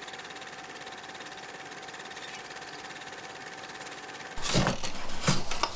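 Electric power-tool motor running steadily with a faint whine. About four seconds in, a louder, rough noise with a few knocks takes over.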